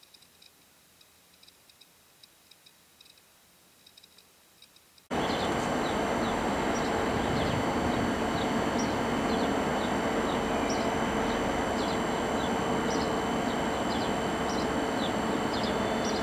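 Steady construction-site noise with a constant machine hum, starting abruptly about five seconds in. Birds chirp repeatedly over it. Before that it is nearly quiet.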